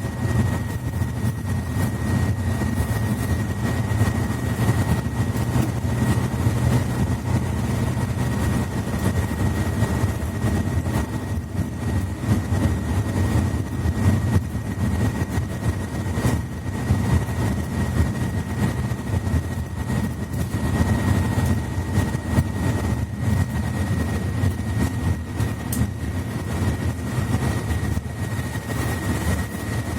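Inside a Mercedes-Benz Citaro C2 articulated bus with a Voith automatic gearbox: the diesel engine runs steadily with a low drone, with a thin steady high whine on top.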